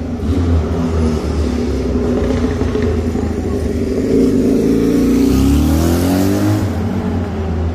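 Engine of a nearby road vehicle running, then accelerating with a rising engine note about five seconds in.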